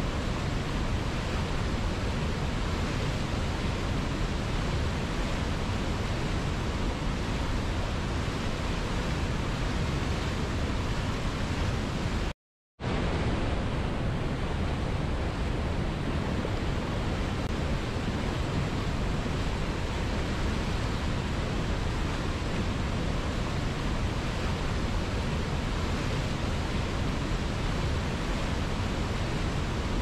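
Whitewater of a mountain river cascade rushing steadily over boulders, a dense, even wash of water noise. The sound cuts out completely for under half a second about twelve seconds in, then comes straight back.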